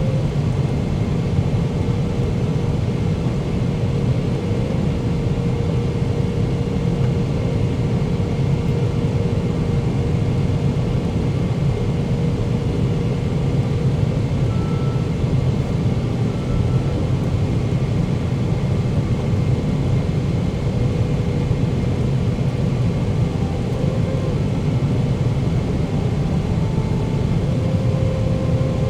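Cabin noise inside a Boeing 777-300ER: a steady low rumble of the GE90 engines and airflow, with a faint steady tone over it.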